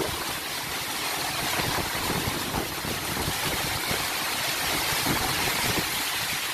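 Storm wind and heavy rain of a tornado, a steady loud rushing drone, with gusts buffeting the phone's microphone in irregular low rumbles.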